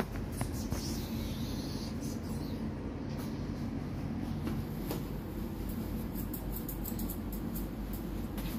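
Grooming scissors snipping a Pomeranian's coat in short, crisp clicks, coming fast and close together in the last few seconds, over a steady low background noise.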